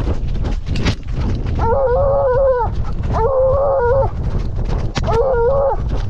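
A trailing hound baying three long, drawn-out calls while running on a deer's track, the calls loud and close to its collar. Quick rustling and thumping from its running feet and the brush fill the gaps between calls.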